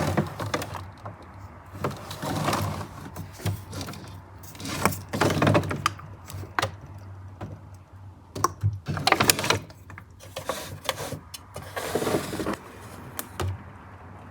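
Refrigerator door and its contents being handled: a string of knocks, clicks and rustles as items are moved about, busiest in several bursts, then settling near the end.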